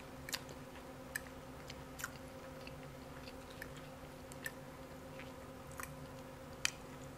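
Quiet close-miked chewing of food, with faint scattered clicks and ticks, about six in all, spread unevenly through the stretch.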